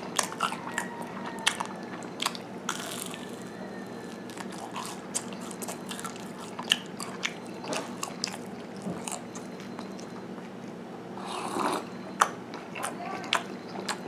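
A person chewing and biting into a crunchy homemade baked snack: irregular crunches and mouth clicks.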